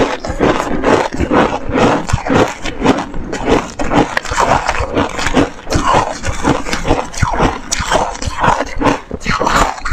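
Close-miked chewing of hard purple ice discs: a dense, irregular run of crunches with no pause.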